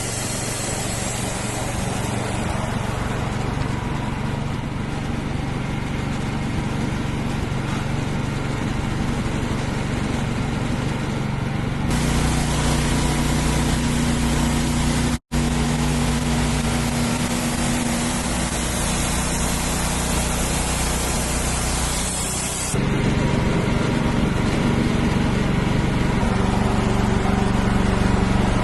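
Wood-Mizer portable band sawmill running steadily, its engine and band blade sawing black walnut logs into boards. The sound shifts abruptly twice and drops out for a split second partway through.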